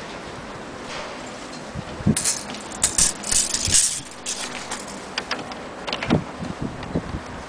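Handling noise: scattered light knocks and rattles of a metal tape measure and hands against a wooden gramophone cabinet, with hissy rustling about two to four seconds in.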